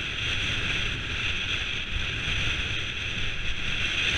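Wind buffeting a bike-mounted camera microphone, over the steady low rumble of mountain-bike tyres rolling on a dirt track.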